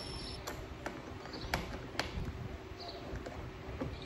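Scattered small metal clicks and taps, irregularly spaced, as Torx screws and a hand driver bit are handled and set into a truck roof rack rail.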